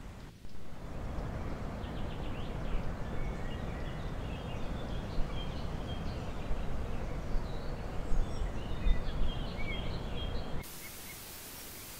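Forest ambience picked up by a trail camera's microphone: a rough rushing noise with small birds chirping throughout and a few sharper knocks. About ten and a half seconds in it cuts to the camera's even hiss.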